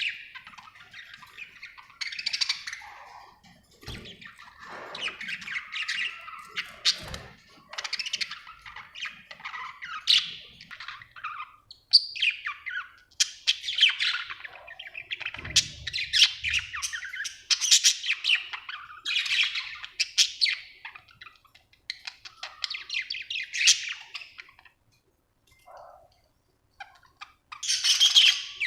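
Budgerigar chirping and chattering in rapid warbling bursts with squawky notes, pausing briefly near the end before starting again.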